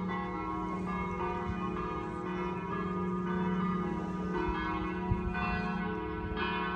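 Church bells ringing, several bells struck in quick succession so their tones overlap and ring on; a single short knock sounds about five seconds in.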